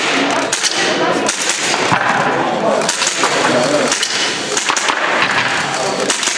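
Airsoft pistol firing a string of sharp snapping shots, spaced unevenly from a fraction of a second to about a second apart, over voices talking in a large hall.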